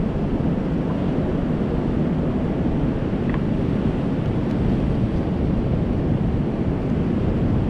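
Steady low wind rumble on the microphone, mixed with surf noise from the sea.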